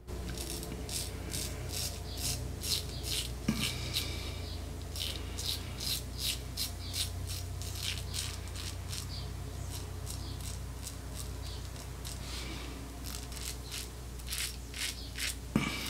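Rockwell 6C double-edge safety razor scraping through a week's stubble on the chin and lip in many short, scratchy strokes, a few a second, with a short lull about two thirds of the way through.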